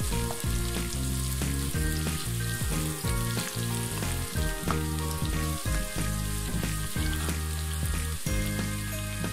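Chopped onions sizzling as they fry in hot oil in a pan, stirred with a spatula, over background music.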